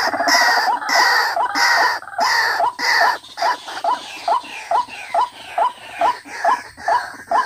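White-breasted waterhen (ruak-ruak) calling. For about the first three seconds there is a dense run of loud croaking calls roughly twice a second, then a steady series of short hooked notes, a little over two a second.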